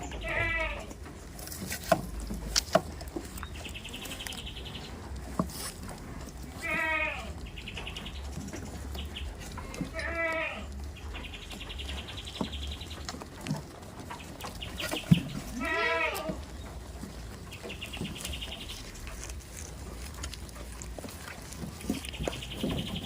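Goats bleating: four quavering bleats spread out over the stretch. Between them come short spells of a high, rapidly pulsing buzz, and a few sharp knocks.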